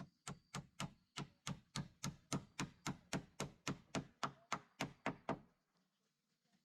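A quick, even series of about twenty thunks, nearly four a second, from repeated strikes such as chopping or knocking, which stop about five and a half seconds in.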